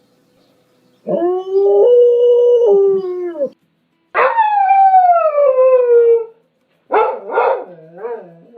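Dog howling: after about a second of quiet, one long held howl, then a second howl that starts high and slides steadily down. A few short, choppy yelps follow near the end.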